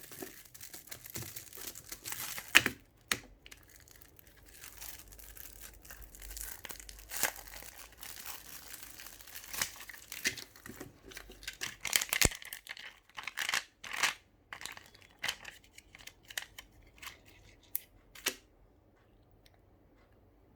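Packaging of a pack of crystal emoji stickers being torn open and crinkled by hand: irregular rips and crackles, some sharp and loud, dying away near the end.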